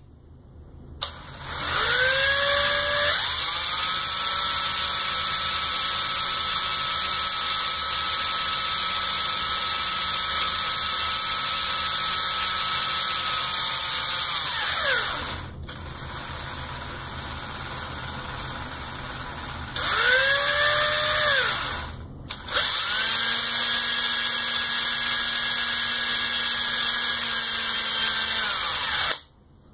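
DeWalt cordless drill running in reverse to bore a 3/32-inch pilot hole through a rubber 3D-printer timing belt. The motor whine rises as the trigger is squeezed and falls at each release, in three runs: a long one of about fourteen seconds, a short blip, and a last run of about six seconds.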